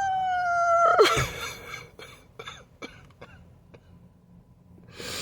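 A man's drawn-out, high crying wail breaks off about a second in. Sputtering sobs and gasps follow, then one sharp noisy breath near the end.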